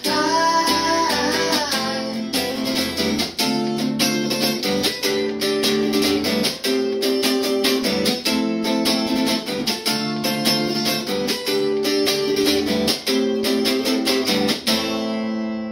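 Archtop guitar strummed in a steady rhythm, with the tail of a sung note over it for the first couple of seconds. Near the end the strumming stops and a last chord rings out and fades, closing the song.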